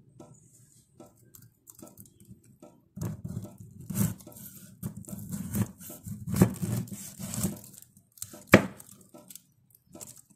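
A kitchen knife cutting through a very small pineapple near its crown on a cutting board. The tough, partly dried rind crunches and tears in short strokes starting about three seconds in, with one sharp knock near the end.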